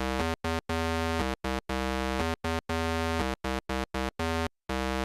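Background synthesizer music: a melody of separate short and longer held notes with brief gaps between them.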